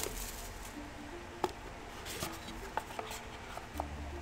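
Plastic shrink wrap crinkling as it is peeled off a small cardboard trading-card box, with a few light clicks and taps from handling the box.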